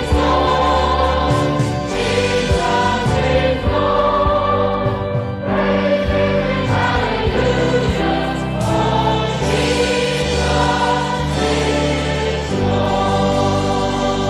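Choir singing a hymn with instrumental accompaniment, long held low notes underneath and the chords changing every second or two.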